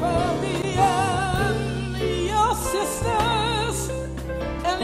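Gospel song: a voice singing long notes with heavy vibrato over a band, with steady held bass notes underneath.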